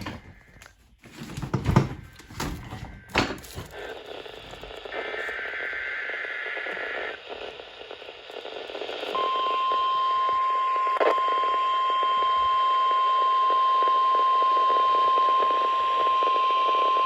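NOAA Weather Radio test broadcast heard over a radio receiver. A few seconds of loud crackling static give way to a short warbling burst of SAME digital header data, then the steady 1050 Hz warning alarm tone, which starts about nine seconds in and holds over radio hiss.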